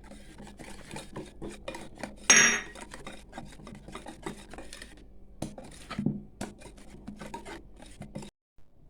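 Cake batter being mixed by hand in a bowl: a utensil scraping and clicking against the bowl in quick, irregular strokes as flour is worked in, with one louder ringing clink about two seconds in.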